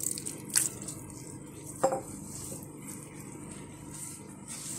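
Water trickling and dripping onto steamed barley couscous (belboula) in a glazed clay dish, then gloved hands rubbing the damp grains in the dish, moistening them between steamings. A few sharp drip-like ticks come in the first second and a single knock about two seconds in, then a faint steady rubbing noise.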